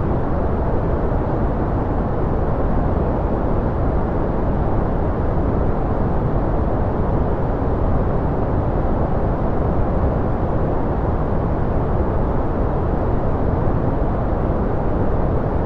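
Steady, unbroken white-noise track with no changes in level. Most of its energy is deep, so it sounds muffled and rumbling rather than hissy.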